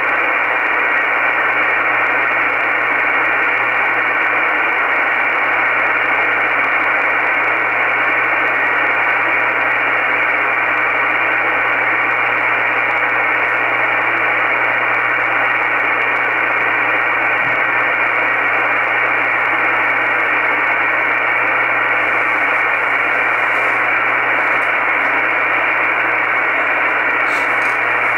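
Icom IC-R8500 communications receiver in upper-sideband mode on the 20-metre amateur band, putting out steady static hiss with no station on the frequency. The hiss is narrow, held to the voice band, with a faint steady low hum beneath it.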